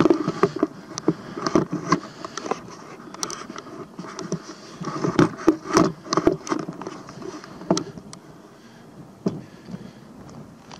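Wind buffeting a foam-covered microphone in irregular gusts and thumps, mixed with knocks from the camera being handled; it eases off over the last few seconds.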